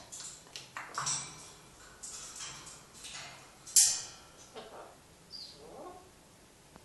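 African grey parrots making short chirps, clicks and scattered scuffling sounds as they play and clamber on a metal cage, with one loud, sharp sound a little before four seconds in.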